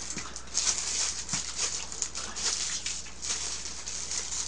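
Small dog whimpering while a plastic wrapper crinkles in repeated short bursts as a packet is peeled open by hand.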